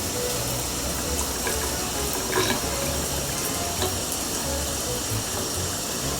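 Steady running water like a tap running into a sink, over light background music, with a short click about two and a half seconds in.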